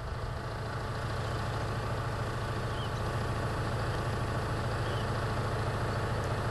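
Steady low hum of an idling engine.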